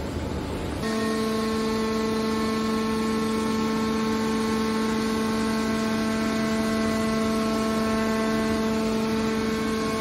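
Hydraulic power unit of a scrap metal shear baler running, a steady hum with a whine. For the first second there is a rougher mechanical noise, which changes abruptly into the steady hum.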